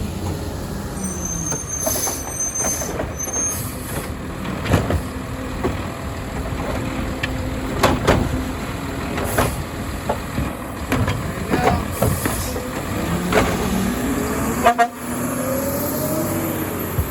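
Garbage truck engine running close by with repeated metallic clanks and knocks, and a high squeal in the first few seconds. About fifteen seconds in comes a short horn honk, after which the engine pitch rises.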